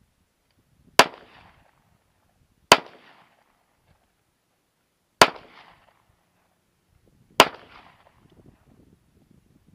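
Four single shots from a Smith & Wesson M&P 9mm pistol, fired slowly about two seconds apart, each followed by a short echo.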